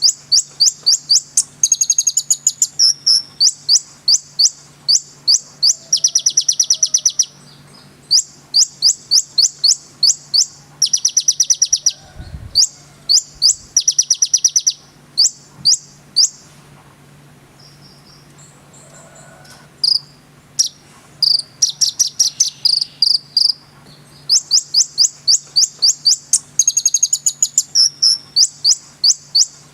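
Kolibri ninja (konin) sunbird singing: rapid high-pitched chipping trills in repeated bursts, with a lull of a few seconds in the middle. A faint steady low hum runs underneath.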